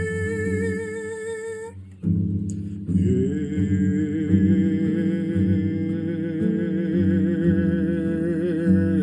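A man's voice holding long notes with vibrato over acoustic guitar accompaniment at the end of a country song. The first note breaks off about two seconds in, and a second long note is held from about three seconds in to the end.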